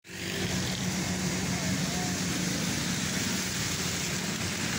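Heavy monsoon rain falling steadily on a flooded road, with vehicle engines running underneath.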